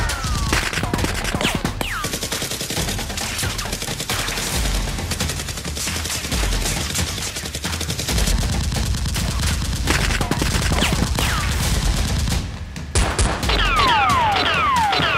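Rapid automatic gunfire sound effects, shot after shot, with several falling whistling whines near the start and again in the last couple of seconds.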